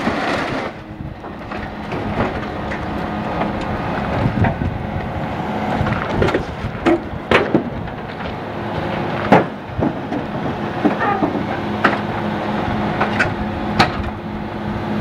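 Scrapyard material handler's engine running steadily as its grapple drags a stripped demolition derby car across a wooden trailer deck and lifts it clear, with repeated metal clanks, knocks and scrapes; the loudest clank comes about nine seconds in.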